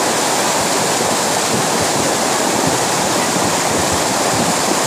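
Muddy flash-flood torrent rushing down a stream channel: a loud, steady rush of churning water.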